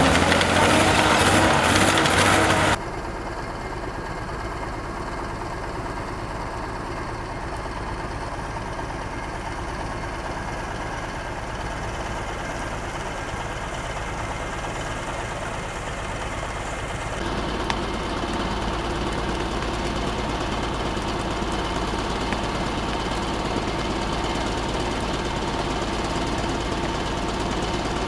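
Diesel engine of a tracked logging vehicle running as it drives away, cutting off abruptly about three seconds in. A quieter, steady low rumble follows, growing slightly louder past the middle.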